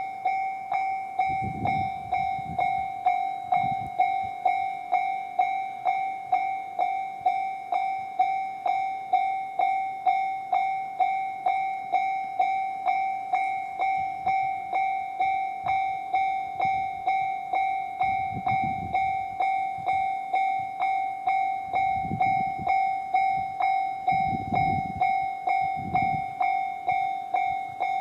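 Level-crossing warning bell in the JR standard electronic sound, one clanging tone struck at a steady rapid beat of just under two strikes a second. Low rumbles from the passing E131-series electric train come in a couple of seconds in and again through the second half.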